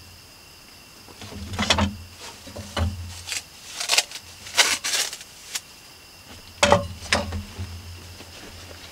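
Hands sorting cooking supplies: plastic bags crinkling and small items knocking as they are picked up and set down, in irregular short bursts, over a faint steady low hum.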